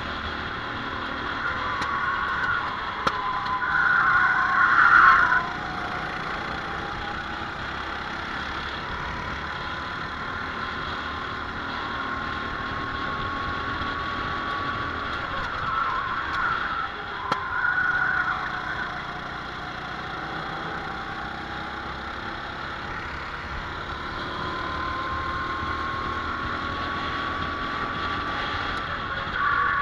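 Racing kart engine running hard, heard from onboard, its pitch rising slowly along the straights. Several louder, rougher stretches come about four seconds in, around sixteen to eighteen seconds in, and near the end.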